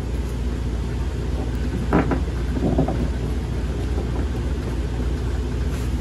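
A steady low hum throughout, with brief handling noises about two seconds in from a go-kart roller chain and its master link parts being worked by hand.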